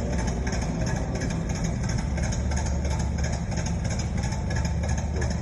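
Radial engine running steadily, a continuous low drone with an even, rapid beat.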